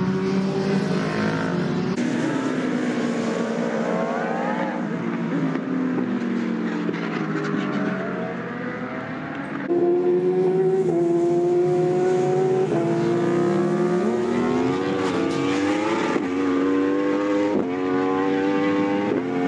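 Racing superbike engines at high revs, the pitch sweeping up and down as the bikes accelerate and brake. In the second half one engine climbs through the gears, its pitch rising and then dropping back at each upshift, several times in a row.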